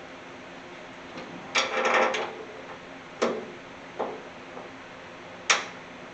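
Headlight bucket parts being handled and fitted into the truck's headlight opening: a short rattling clatter of parts, then three sharp knocks, the last one the loudest.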